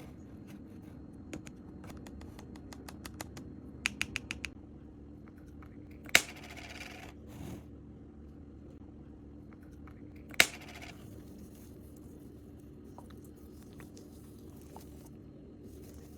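Close-up handling sounds of slime-making: small light clicks and taps, a quick run of ticks about four seconds in, and two sharp knocks, each followed by a short rustle, over a steady low hum.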